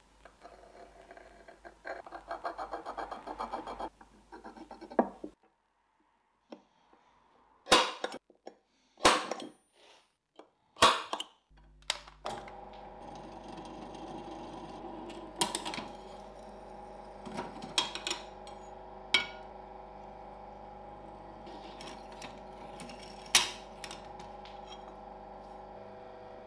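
A steel scriber scratching over a layout-coated steel knife blank, then sharp metal clinks as steel parts and setup blocks are handled. About halfway through, a bench drill press motor starts running with a steady hum, with more metal clinks over it.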